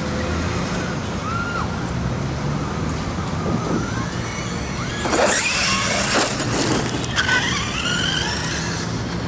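Electric motor whine of a Traxxas E-Revo 1/10-scale RC monster truck, rising and falling in pitch as it speeds up and slows. It is loudest about five seconds in, with a rush of noise over the whine.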